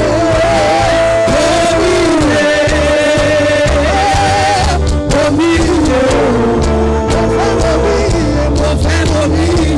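Worship music with a voice singing long, held and gliding notes over a steady bass.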